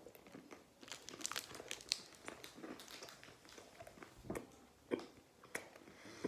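Close-up chewing and crunching of a bite of chocolate-coated Oreo ice cream, with a plastic wrapper crinkling in hand. There are dense crackles in the first few seconds, then a few sharper clicks.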